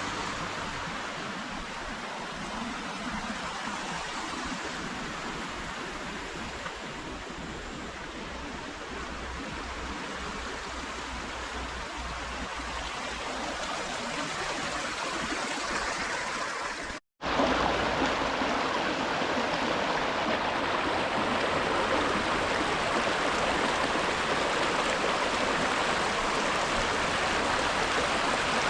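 Steady rushing of a flowing stream. It drops out for an instant about seventeen seconds in and returns a little louder.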